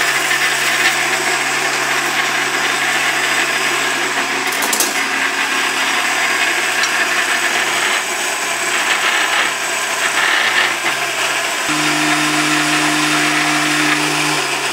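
Countertop jug blender running steadily, its motor churning chickpeas and avocado into a thick houmous. Near the end the motor note steps up in pitch.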